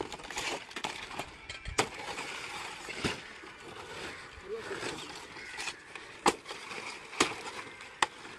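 Large green fan-palm fronds rustling and scraping as they are handled and laid out on the ground, with several sharp cracks from the stiff leaves and stalks.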